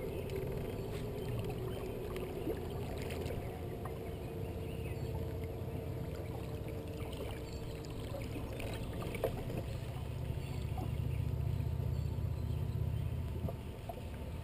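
Water lapping against the hull of a bass boat sitting on the current, under a low steady rumble, with a faint steady hum for a few seconds in the first half and a few small ticks.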